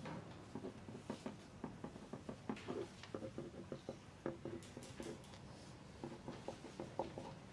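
Faint quiet exam-room sound: pencils writing on paper, with many small irregular taps and clicks.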